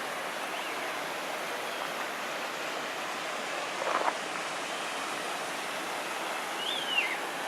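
Steady rushing of a running stream, with a bird giving one short whistle that rises and then falls near the end.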